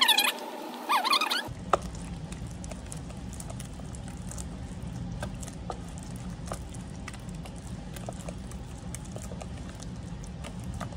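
Silicone-coated wire whisk beating mashed banana, eggs and peanut butter in a plastic container: soft wet squishing with faint, irregular clicks of the whisk against the container. A low steady rumble sits underneath from about a second and a half in.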